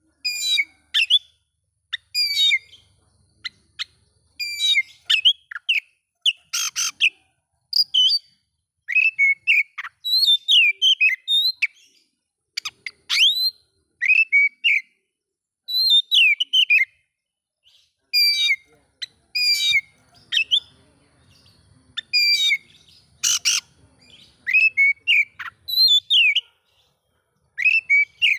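Oriental magpie-robin (kacer) singing in short, varied phrases of sliding whistled notes, broken by harsh rasping notes near the start, about seven seconds in and again about twenty-three seconds in.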